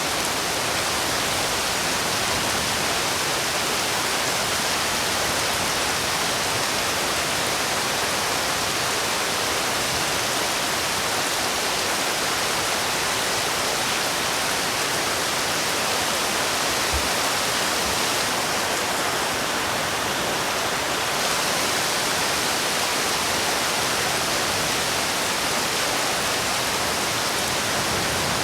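Heavy rain falling steadily, an unbroken even hiss.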